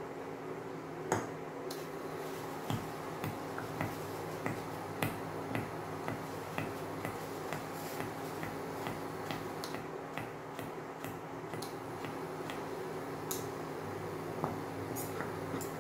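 Wire whisk clicking and scraping against a stainless steel saucepan as the thickening flan custard is stirred, in irregular taps about every half second. Under it, the steady hum of an induction hob.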